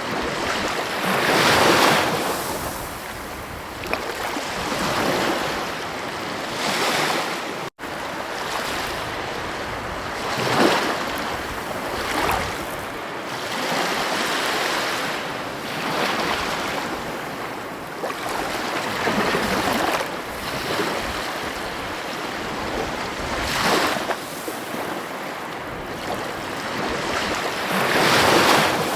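Ocean surf breaking on a beach: a steady wash of noise that swells into a louder breaking wave every three to five seconds. There is a momentary dropout in the sound about eight seconds in.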